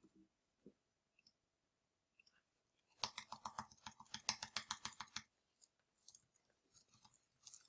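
Computer keyboard key pressed rapidly, about fifteen clicking strokes in two seconds starting about three seconds in, deleting text character by character. Otherwise near silence.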